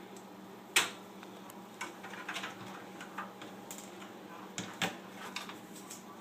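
Scattered plastic clicks and knocks of power-supply cable connectors being handled and plugged back into a desktop computer's motherboard. The sharpest click comes about a second in, another just before five seconds.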